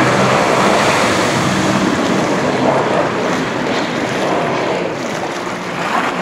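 Sea-Doo RXT 255 RS personal watercraft, with its supercharged three-cylinder four-stroke engine, running at speed through hard turns and slowly fading as it moves away, under a rush of spray and wind buffeting the microphone.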